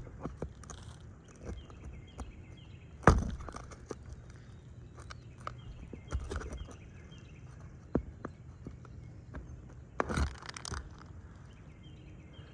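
Scattered knocks, clicks and scuffs of hands-on work on an asphalt shingle roof, with two louder thumps about three seconds in and about ten seconds in.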